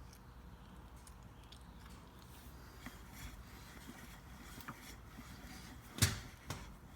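Faint scattered clicks and handling noises of tools and parts under a car, with one sharp knock about six seconds in.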